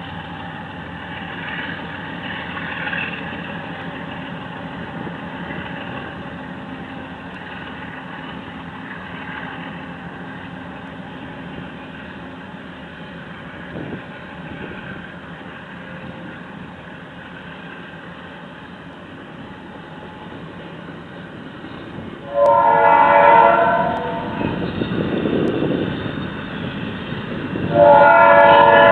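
A train's low rumble that grows as it approaches, then a locomotive air horn sounding two long blasts, the first about three quarters of the way in and the second near the end.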